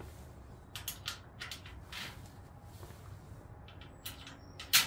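Metal hooks being fitted into the holes of a pegboard: a handful of short, light clicks and taps, the loudest near the end.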